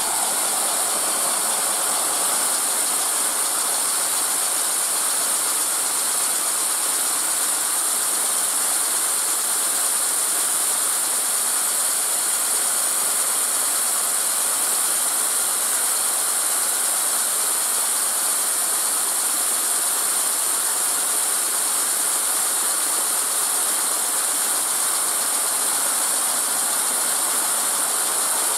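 Wooden model double-acting steam engine kit running on compressed air from an air-compressor hose: a steady hiss of air with the engine's mechanism working.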